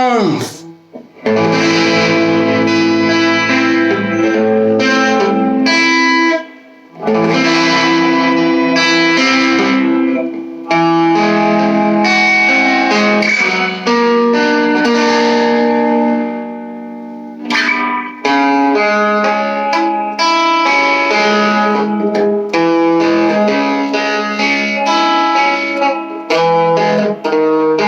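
Two-pickup electric guitar played through an all-tube amp, chords in a mostly clean, jazzy tone with a little grit from the amp's breakup. It pauses briefly about six seconds in and again for about a second and a half after sixteen seconds.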